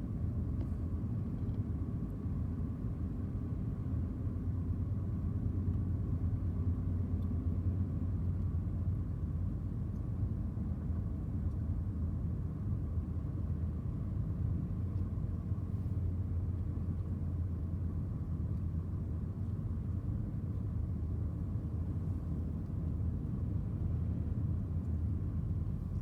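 Steady low rumble of a Ford car driving, engine and tyre road noise heard from inside the cabin.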